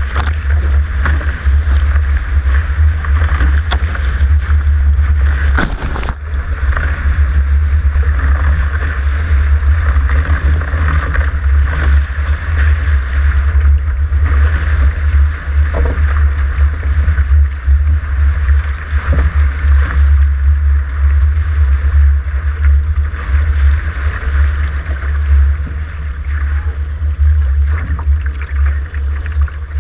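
Water rushing and hissing along the hull of a Dart catamaran sailing at speed, under heavy wind rumble on the microphone. A few sharp knocks or splashes come in the first six seconds.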